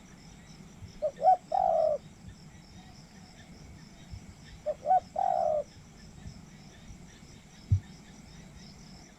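Spotted dove cooing twice, a few seconds apart, each phrase a quick pair of short coos followed by one longer drawn-out coo, over a steady chirring of insects. A single short low thump comes near the end.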